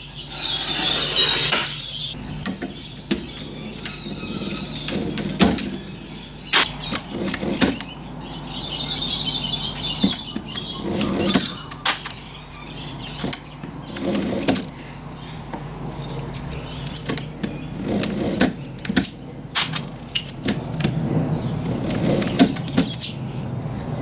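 Hand work on thin aluminium strip: a scratchy rasp from a divider point scribing the metal in the first two seconds, and another rasp about nine seconds in. Scattered sharp metallic clicks and knocks follow as the strip is fed through and turned in hand-cranked jeweller's rolls, over a steady low hum.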